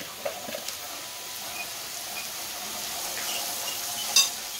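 Meat, sausage and chicken frying on a wide steel cooking disc over a wood fire: a steady sizzle, with the spoon scraping and clicking through the food as it is stirred. A sharp clank just past four seconds is the loudest moment.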